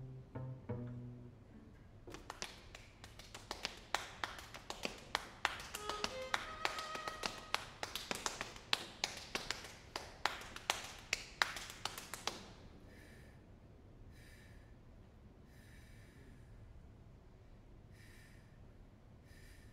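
The last notes of a string quartet, cello and plucked strings, die away in the first second or two. Then an audience claps for about ten seconds, the claps distinct rather than a dense roar, and the clapping stops, leaving faint room noise with a few soft hissing puffs.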